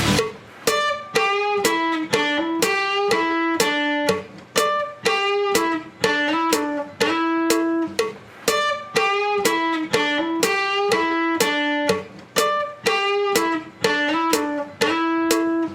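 Background music: a solo plucked-string melody of bright, quickly decaying notes, several a second, with clear pitches.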